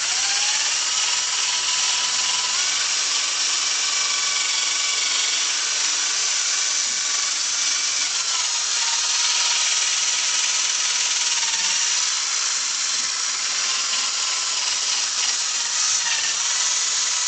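Electric drill spinning a buffing pad loaded with polishing compound against a plastic headlight lens, part of the 3M Headlight Lens Restoration System. The drill runs steadily with a motor whine that sags and recovers slightly in pitch as the pad is pressed on the lens.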